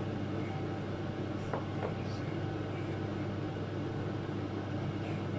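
A steady low machine hum, with two faint light clicks about one and a half seconds in.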